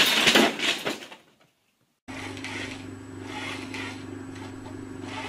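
A loud crinkling crash of a paper bag as a cat tangles in it and knocks it over, lasting about a second and a half and cutting off abruptly. About two seconds in a steady low hum starts under faint rustling.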